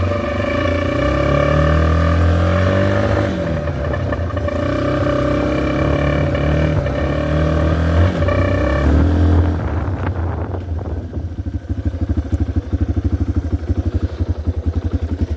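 Yamaha TT-R230 dirt bike's single-cylinder four-stroke engine revving up and down under riding, with an air horn duct-taped into the exhaust sounding a steady horn tone over it. About nine and a half seconds in, the horn tone stops because the horn has come out of the exhaust, leaving the bare engine running slowly with a quick, even putter.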